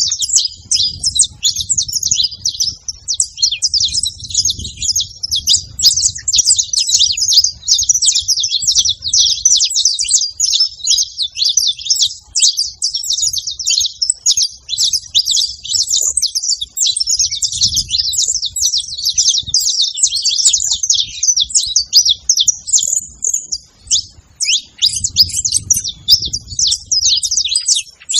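Many saffron finches chirping and singing at once, a dense, unbroken chatter of short high calls with no pauses.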